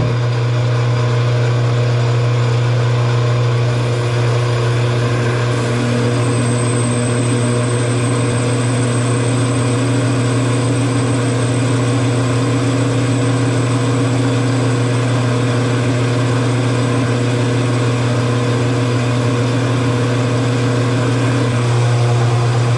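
Metal lathe switched on and running steadily with a loud motor and gear hum, making a slow cutting pass about forty thousandths deep in a steel workpiece. From about six seconds in, a thin high whine joins for several seconds as the tool cuts.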